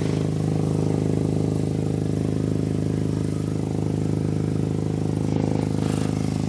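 A Volkswagen MK7 Golf R's turbocharged EA888 four-cylinder idling steadily, heard from underneath at the downpipe. Exhaust is escaping from a leak in the braided flex section at the bend of the Bull-X downpipe.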